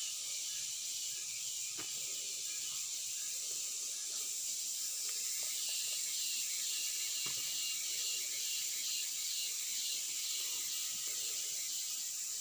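Steady high-pitched forest ambience, with a few faint clicks and snaps as wild mushrooms are pulled by hand from a tree trunk.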